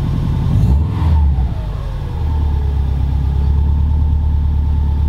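Subaru Liberty GT Spec B's EJ25 turbocharged flat-four idling through a full 3-inch exhaust with straight-through mufflers, heard from inside the cabin, on its raised cold-start idle as it warms. About a second in the note shifts with a briefly falling whine, then settles into a steady low drone.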